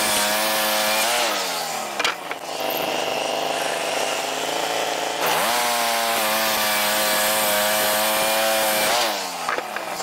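Wood-Mizer LT15 sawmill's engine driving the band blade. It runs at high speed, drops back to idle about a second in, revs up again about five seconds in and winds down near the end. There is a sharp knock about two seconds in.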